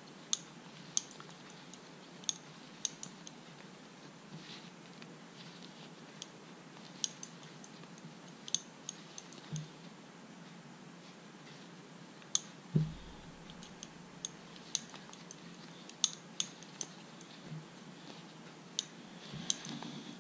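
Light, irregular clicks and soft rustle of a metal crochet hook and yarn being worked into double crochet stitches, with one soft bump about 13 seconds in.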